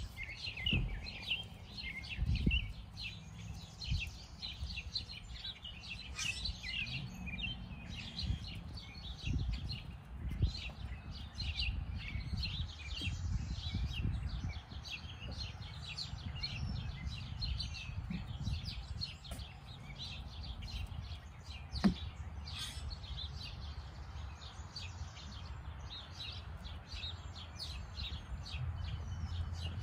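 Many small birds chirping and twittering without pause, over a low rumble, with one sharp knock about 22 seconds in.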